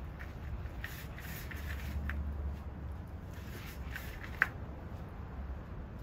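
Gloved hand stirring and mixing soil in a plastic bucket: faint scattered rustling and scraping, with one sharp click about four and a half seconds in, over a low steady rumble.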